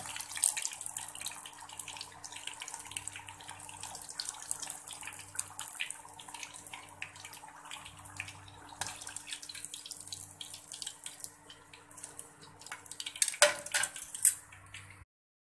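Lumpiang Shanghai spring rolls deep-frying in hot oil at medium heat: a steady crackling sizzle. Near the end there are a few louder clicks of metal tongs as the rolls are lifted out, then the sound cuts off abruptly.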